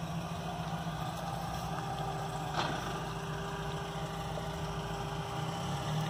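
Steady low machine hum, with a faint click about two and a half seconds in and a sharp click at the very end.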